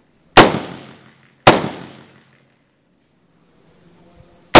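Three rifle shots fired by the shooter, the first two about a second apart and the third about three seconds later, each trailing off in echo.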